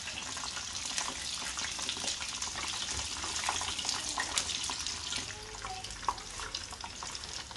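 Kikiam (fish-ball rolls) deep-frying submerged in hot oil in a pan: a steady sizzle with scattered sharp crackles and pops from the bubbling oil.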